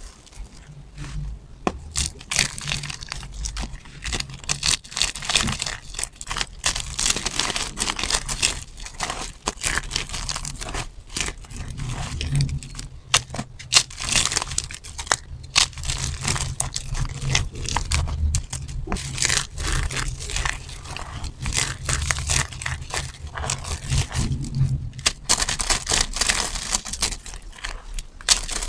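Dry bar soap crushed and crumbled by hand: a dense run of small crunches and crackles as brittle soap flakes and chunks break apart between the fingers.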